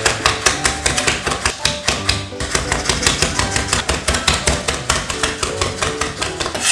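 Chef's knife rapidly chopping on a bamboo cutting board, about seven strokes a second with a short pause a little over two seconds in, mincing chilies, garlic and dried shrimp. Background music plays underneath.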